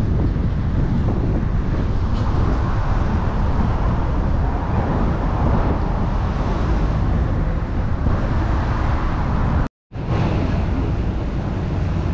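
Strong wind buffeting the microphone, a loud, steady, low rush. It breaks off in a brief silent cut about ten seconds in, and a similar low rumble resumes after it.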